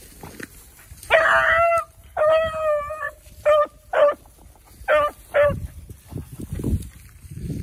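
Beagle hound baying on a rabbit's scent trail: two drawn-out bawls, then four short chop barks.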